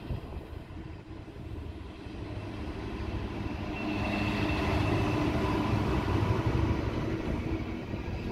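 Class 66 diesel locomotive's two-stroke V12 engine passing through with an intermodal container train. The engine drone and rail rumble build up, are loudest about halfway through as the locomotive goes by, then carry on as the container wagons roll past.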